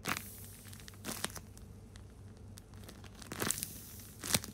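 Handmade tape-covered paper squishy crinkling as it is squeezed by hand, in four short bursts.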